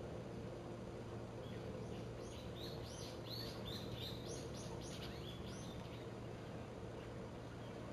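A small bird singing a quick run of short, high, repeated notes, about three a second, starting about a second and a half in and stopping around six seconds in, over a steady low hum and outdoor background noise.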